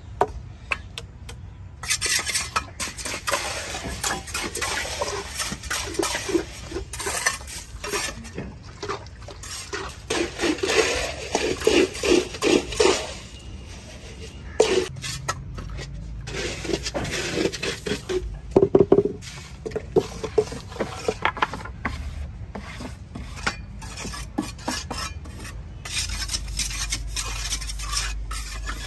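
Metal hand tools working gritty cement and gravel mix: irregular scraping, scooping and clinking of a trowel and scoop in the mix and against the tile mould.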